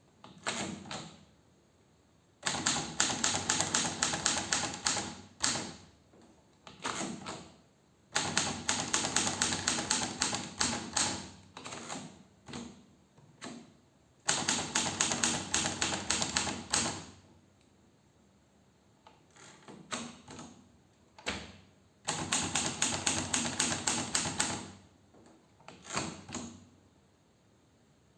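1952 Hermes Baby portable manual typewriter being typed on: runs of rapid keystrokes lasting a few seconds each, broken by pauses and a few single strokes.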